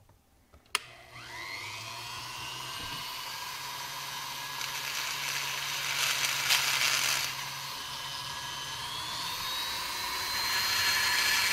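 Foredom flex-shaft rotary tool with a carbide burr enlarging the bolt holes of an exhaust gasket. A click comes under a second in, then a rising whine as the burr spins up, and it settles into a steady whine with grinding noise that is loudest about halfway through. Near the end the pitch climbs again.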